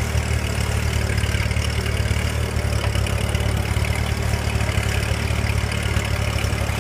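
Ford 8N tractor's four-cylinder engine running steadily with a fast even low pulse, under load as it pulls a rear grader blade through dirt.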